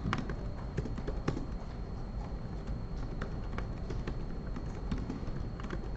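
Typing on a computer keyboard: irregular, quick keystroke clicks.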